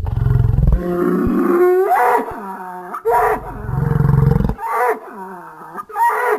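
Creature sound effect layered from bull, buffalo and bison calls: a run of loud bellows and moans starting abruptly out of silence, some deep and rumbling, others with a pitch that dips and rises again.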